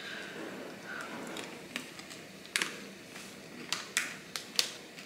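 A few light, sharp clicks and taps at uneven intervals over faint room tone.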